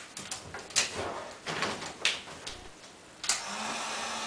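A few short knocks and scuffs of handling, then about three seconds in a heat gun switches on and runs with a steady hiss and low hum as it starts warming the vinyl cornhole wrap.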